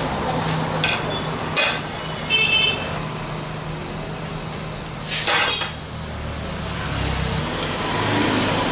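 White ceramic plates set down and stacked on a countertop: a few sharp clinks in the first two seconds, one ringing briefly, then another clatter about five seconds in, over a steady low background hum.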